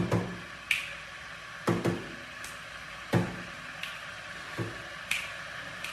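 Irregular sharp clicks and knocks, some with a low thud, about eight over six seconds, over a steady background hum.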